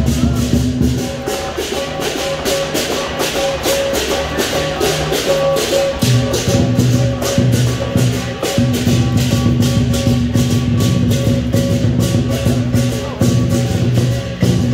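Traditional lion dance percussion: drum, cymbals and gong playing a fast, even beat of clashes, about three or four a second, over a steady ringing tone.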